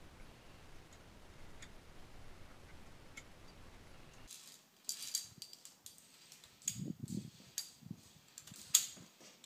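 A faint steady hiss, then from about four seconds in a run of sharp metallic clicks and clinks with soft scuffs between them: via ferrata lanyard carabiners being handled and clipped on the steel safety cable, with footsteps on rock. The loudest click comes near the end.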